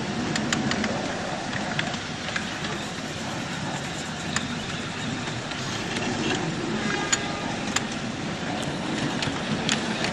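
7¼-inch gauge miniature railway train running along its track: a steady rumble of wheels and rolling stock, with irregular sharp clicks over the rail joints.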